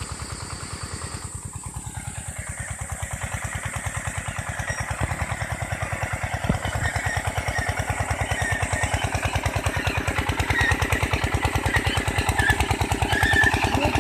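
Engine of a homemade jugaad cultivator running at a steady low speed. It beats evenly at about ten pulses a second and grows gradually louder.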